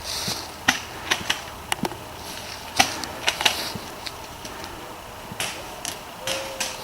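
Airsoft gunfire in an exchange: scattered sharp snaps of shots and BB hits, about a dozen at irregular intervals.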